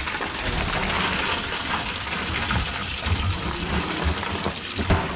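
Water gushing and splashing into a boat's fish box packed with snapper, a steady rushing hiss over a low rumble, with a few small knocks.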